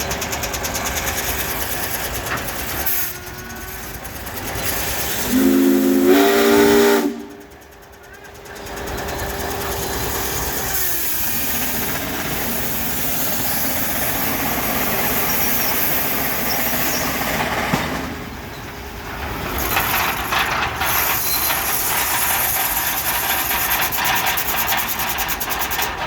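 A steam engine's whistle blows one short blast of under two seconds, several pitches sounding together, about five seconds in: the loudest sound here. Around it runs a steady hiss and clatter of steam engines and machinery working, with a quick even beat toward the end.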